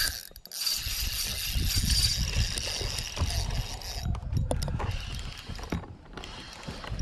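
Fishing reel being cranked, its gears whirring steadily for about four seconds, then again more briefly, with wind rumbling on the microphone.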